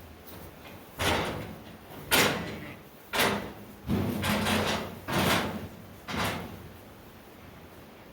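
Metal sheep chute panels clanging as they are handled and set in place: about six sharp bangs roughly a second apart, each ringing briefly.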